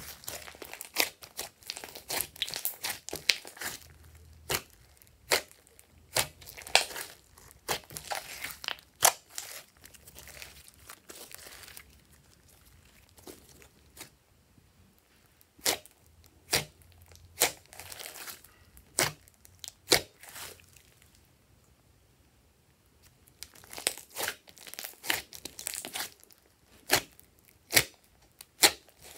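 Hands squishing, stretching and pressing glossy slime: sticky crackling and sharp pops as trapped air bursts, coming in irregular bursts with short quiet pauses.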